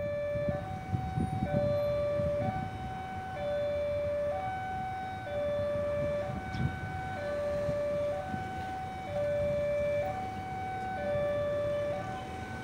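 Railway level-crossing warning alarm: an electronic two-tone signal stepping between a lower and a higher note, each held about half a second, warning of an approaching train. A low, uneven rumble sounds underneath.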